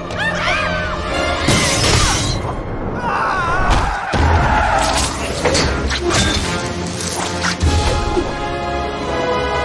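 Action-film soundtrack mix: loud orchestral score over crashes, shattering and heavy thuds, with a few high wavering cries early on.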